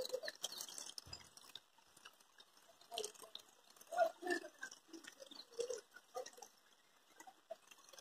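Faint, irregular small gurgles and splashes of water lapping against a concrete check-dam wall.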